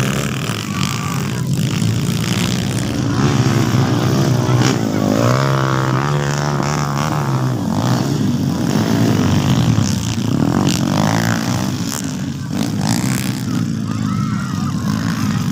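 Motocross dirt bike engines running and revving, one swinging up and down in pitch around the middle.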